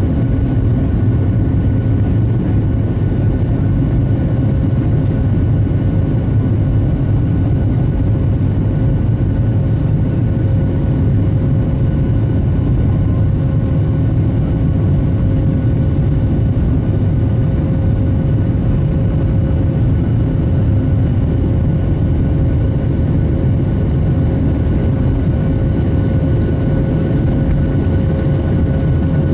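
Cabin noise of a Boeing 737-700 taxiing, heard from a seat over the wing. Its CFM56-7B engines run at low thrust as a steady deep rumble with a steady whine through it.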